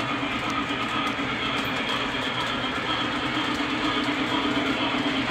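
O-gauge model steam locomotive running along the track, a steady rumbling hum of its motor and wheels.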